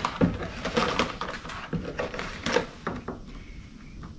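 Irregular clicks, taps and scraping as a navigation light's wire is pulled through a small hole in a plastic kayak hull and the light is worked into the hole. The handling noise dies down after about three seconds.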